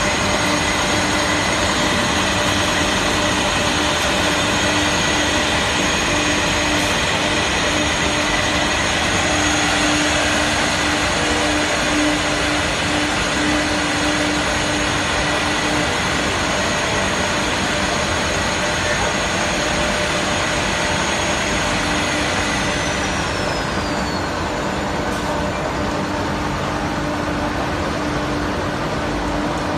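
Jelance CNC multi-spindle mortising machine running: a steady loud machine noise with a high-pitched spindle whine. About 22 seconds in, the whine falls in pitch and fades.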